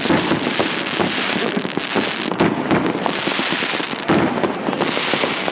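Many fireworks and firecrackers going off at once: a dense, unbroken crackling of overlapping bangs and pops.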